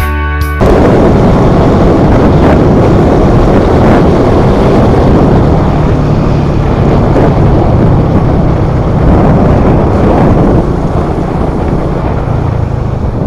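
Loud wind rushing over the microphone of a moving vehicle on the road, with its engine faintly running underneath.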